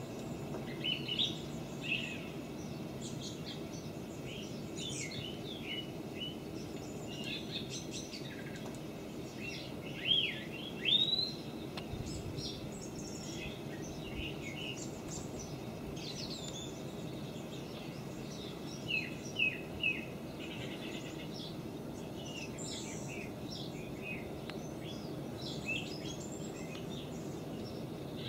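Outdoor birds chirping and calling on and off over a steady low background hum, with a few louder rising calls about ten seconds in and three short chirps a little before twenty seconds.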